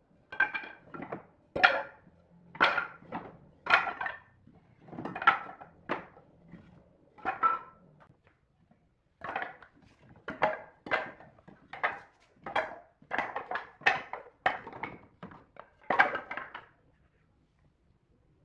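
Wooden offcuts knocking and clattering together as pieces are pulled from a pile of scrap wood and dropped aside: a run of sharp, hollow wooden knocks with a pause of about a second midway.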